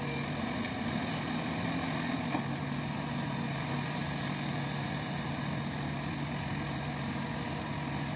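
Hidromek tracked excavator's diesel engine running steadily at a constant pitch as the machine crawls through shallow river water.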